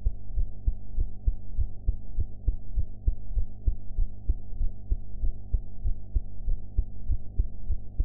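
A woman's heartbeat recorded close up: a steady, even rhythm of muffled, low beats over a steady low hum.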